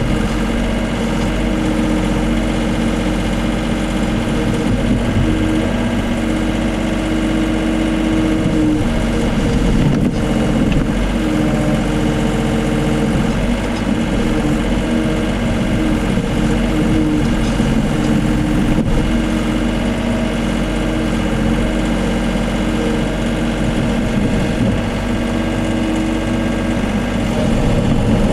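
Case CX39B mini excavator's diesel engine running steadily, heard from the operator's seat while the boom and arm are worked.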